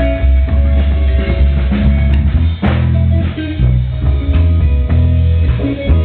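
Live jazz band playing: electric bass guitar and drum kit under electric guitar and keyboard.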